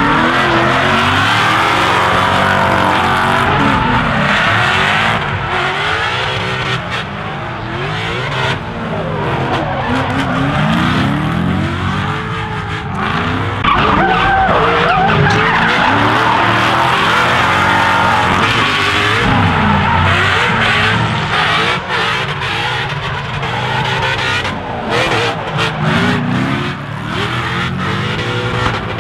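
Drift cars sliding sideways in tandem, their engines revving up and down over and over while the tyres squeal without a break.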